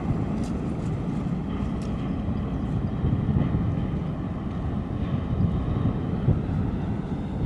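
Low, steady rumble of a large container ship's engines as the ship passes close, with a faint steady whine above it and wind buffeting the microphone.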